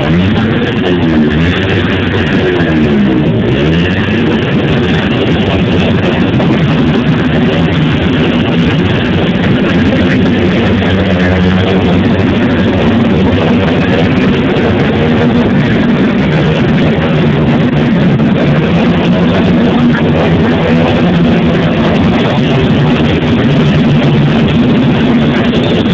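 Loud, steady music with guitar.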